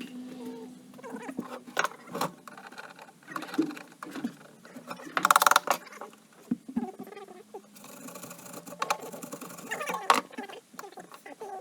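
Fast-forwarded workshop sound from a time-lapse of an ATV being taken apart: high, chattering squeaks with rapid clicks and clatter of tools and parts. A short loud buzz comes about five seconds in.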